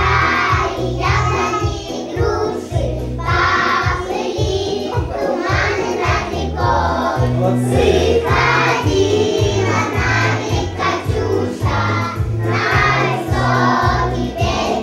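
A group of young children singing a song together over an instrumental accompaniment with a steady low beat.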